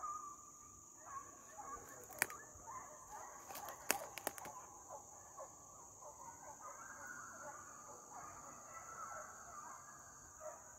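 Faint chorus of a pack of deer hounds baying on a chase, over a steady high drone of insects. A few sharp clicks about two and four seconds in.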